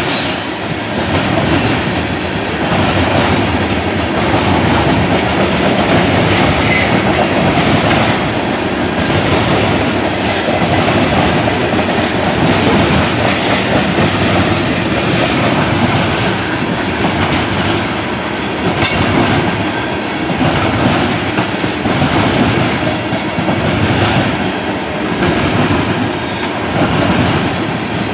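Covered hopper cars of a freight grain train rolling past close by: a steady rumble of steel wheels on rail with repeated clicks as the wheels pass over rail joints, and one sharper click about two-thirds of the way through.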